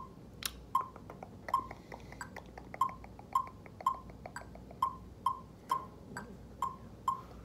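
Metronome ticking steadily at about two beats a second, each beat a short, clear pitched click.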